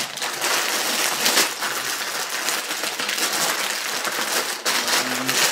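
Plastic bags of LEGO pieces crinkling and rustling steadily as they are handled and sorted.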